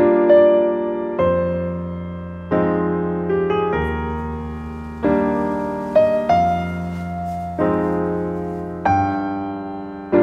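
Background piano music: slow, gentle chords struck one after another, each left to ring and fade before the next.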